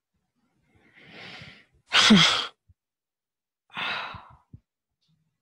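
A person's breathing and a deep sigh. A soft breath comes about a second in, then a loud voiced sigh about two seconds in that falls in pitch, and another breath near four seconds.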